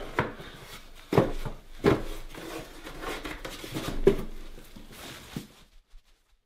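Plastic clunks and rustling as a dust bag is put back into a portable dust extractor and its housing pressed shut. Four sharper knocks stand out among the rubbing, and the sound stops abruptly about a second before the end.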